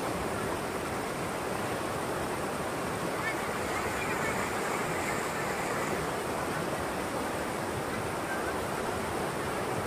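River rapids rushing over and between large boulders: a steady rush of white water.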